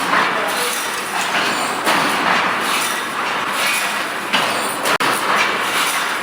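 Mechanical wire mesh welding machine running: a loud, steady noisy din that swells and eases every second or two as it works.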